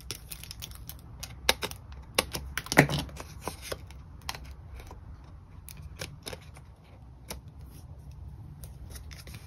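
Irregular light clicks and taps of paper-craft handwork: foam adhesive dots (Dimensionals) peeled off their sheet and pressed onto layers of card. The clicks come thickest in the first few seconds, then thin out.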